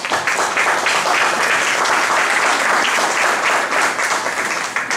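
Audience applauding, many hands clapping together, starting suddenly and dying away near the end.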